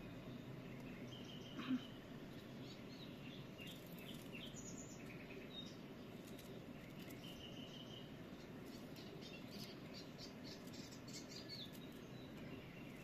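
Small birds chirping in short calls and brief whistles throughout, over faint scraping and clicking of a knife peeling fibrous wild artichoke stalks by hand. A single sharp tap about two seconds in.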